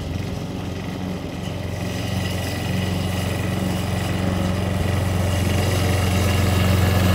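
Walk-behind petrol lawn mower running and cutting grass, a steady engine hum that grows louder as the mower is pushed closer.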